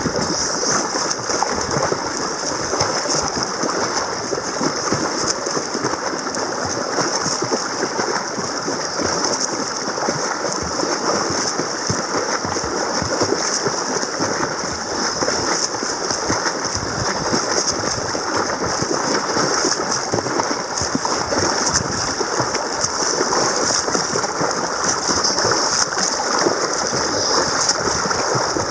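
Continuous water splashing and sloshing from a snorkeller swimming front crawl close by, arm strokes throwing up spray, heard from right at the water's surface.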